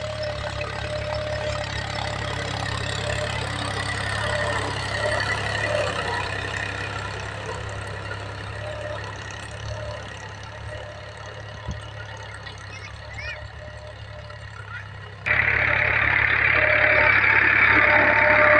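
Powertrac 435 tractor's three-cylinder diesel engine running steadily under load, pulling a spring-tine cultivator through the soil. About fifteen seconds in it turns suddenly much louder, heard right beside the tractor.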